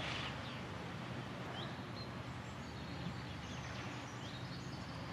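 Steady outdoor background noise with a few faint, short, high bird chirps scattered through it.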